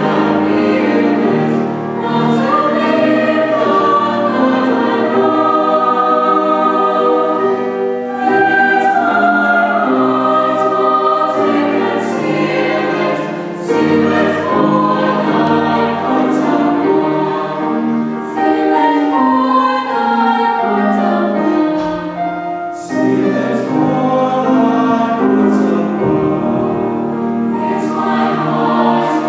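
High school chamber choir singing a sacred piece, many voices in sustained chords that move from note to note.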